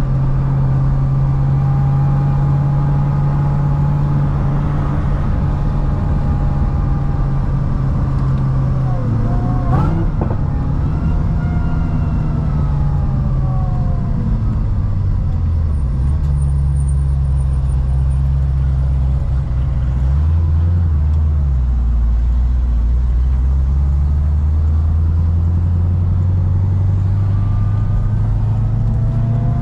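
Supercharged V8 of a C6 Corvette ZR1 running on the road, steady at first, with a sharp click about ten seconds in. The revs then fall and the engine runs lower and steadier, before climbing again near the end with a whine rising alongside.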